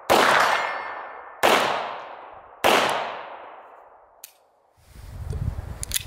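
Three 9mm pistol shots from a Beretta 92FS, about a second and a quarter apart, each with a long echo dying away; a faint ring from a hit on a steel target follows the first. A single click near four seconds in, then handling noise and a few metallic clicks as the pistol is worked near the end.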